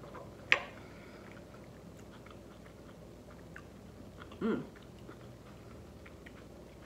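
Chewing a mouthful of loaded taco fries, with faint wet mouth sounds and small clicks. A single sharp click comes about half a second in, and a brief rising hum about four and a half seconds in.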